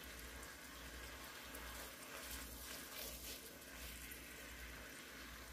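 Chicken breasts sizzling and bubbling faintly in oil in an enamel pot, with a few light scrapes of a fork as the pieces are turned.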